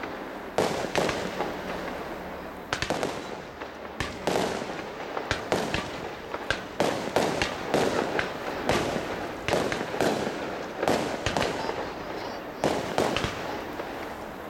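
Aerial fireworks shells bursting one after another, a sharp bang about every second or so, each trailing off briefly.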